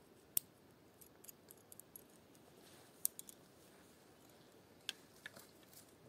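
A scattering of short, sharp clicks and snaps, one at a time or in small clusters, over a quiet background.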